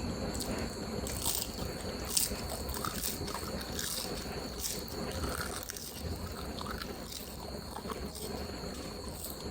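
Close-up eating sounds of Samyang Rose spicy noodles and seaweed snacks: chewing with scattered short crunches and wet mouth clicks.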